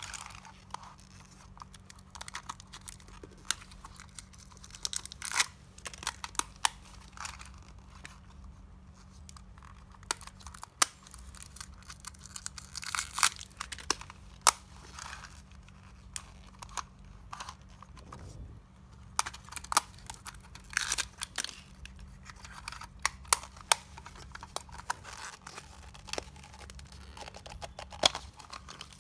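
Plastic stickers and wrapping being peeled, torn and crinkled off a hard plastic L.O.L. Surprise ball, with scattered sharp clicks and snaps as the plastic shell is handled and pried at.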